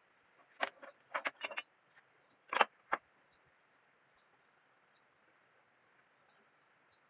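A scattered run of short, sharp knocks and clacks, about eight in all, in the first three seconds, the loudest near the middle. Faint small bird chirps repeat every second or so against a quiet background with a faint high steady whine.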